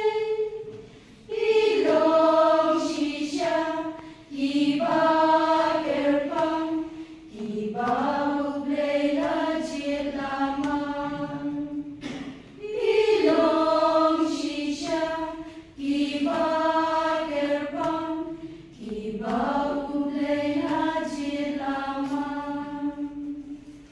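A choir singing in phrases of a few seconds each, with short pauses between the lines.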